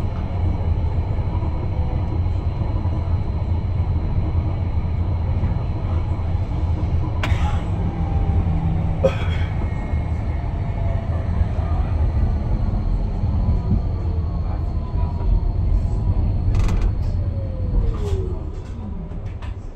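Tram running, heard from inside the car: a steady low rumble of wheels on rails, broken by a few sharp clicks and knocks. Near the end a whine falls in pitch as the tram slows.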